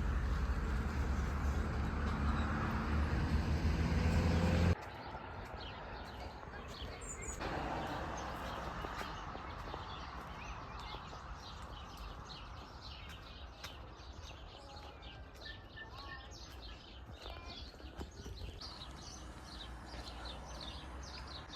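A steady low hum for the first few seconds cuts off suddenly, giving way to quieter outdoor ambience with birds chirping in quick, repeated calls.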